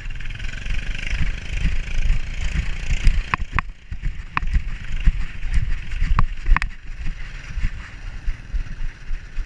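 Rumbling and knocking of a dog-worn GoPro as the dog moves, with wind on the microphone and a few sharp clicks in the middle.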